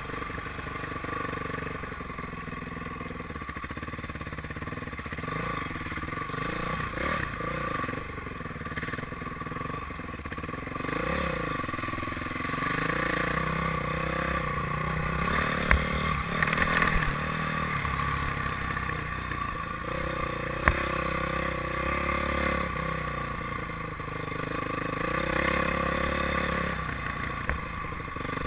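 Honda dirt bike engine running under way, its pitch rising and falling again and again as the rider works the throttle. A couple of sharp knocks cut through about halfway in.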